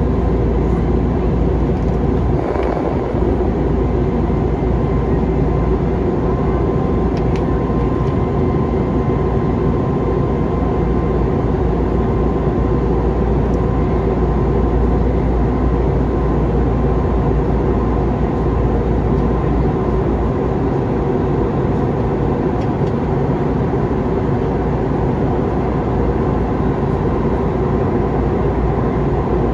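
Airbus A321neo cabin noise in flight: a steady drone of engines and airflow, with a faint steady whine.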